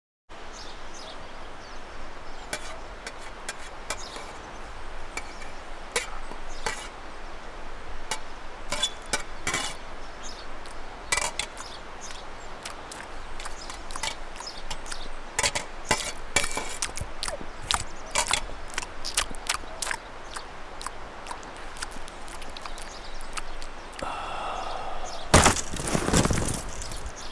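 Irregular sharp cracks and snaps over a steady hiss, with a louder rushing burst near the end.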